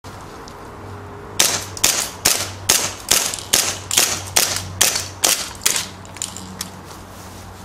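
Tokyo Marui Night Warrior gas blowback airsoft pistol firing eleven sharp shots in steady succession, a little over two a second, emptying its magazine. Two fainter clicks follow near the end.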